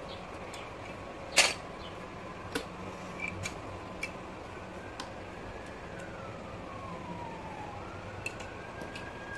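Scattered sharp clicks and taps from plastic toys, one much louder about a second and a half in, over a steady hum. A faint tone slides down and then back up in the second half.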